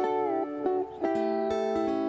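Background music of plucked string instruments playing a melody, with a brief drop in level just before a new phrase starts about a second in.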